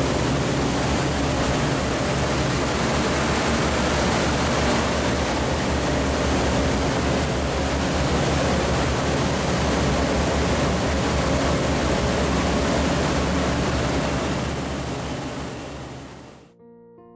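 Steady, loud rushing machinery noise with a low electrical hum, from a powered-up Bullard CNC vertical turning lathe at its open drive cabinet. It fades out near the end and soft piano music begins.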